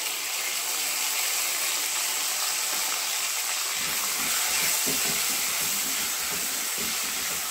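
Chopped vegetables frying in oil in a nonstick kadai, a steady sizzle. From about four seconds in, a silicone spatula stirs them, adding soft scraping strokes.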